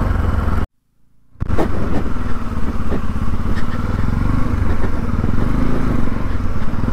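Motorcycle engine running while the bike is ridden. The sound drops out for about half a second near the start, then the engine resumes on a rough, rocky, muddy track with a few knocks.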